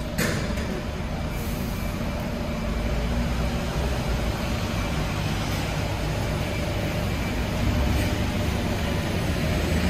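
City street traffic: a heavy vehicle's engine rumbles close by with a faint steady whine, and the noise grows slightly louder. A sudden sharp click sounds just after the start.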